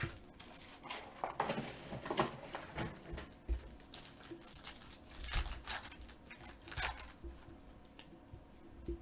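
Trading-card box and foil packs being torn open by hand: irregular bursts of wrapper tearing and crinkling, loudest about two seconds in and again past the middle.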